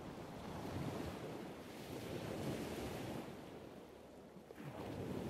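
Outdoor rushing noise of wind on the microphone mixed with the wash of ocean surf below, swelling and easing a few times.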